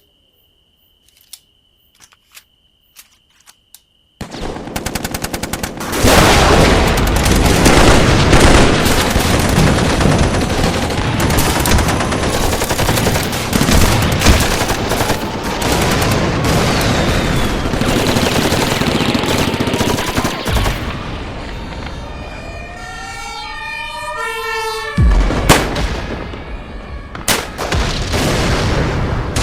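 Battle sound effect: a few scattered single gunshots, then from about four seconds in dense, continuous automatic gunfire, with several rising whistles through it. Two heavy blasts come near the end.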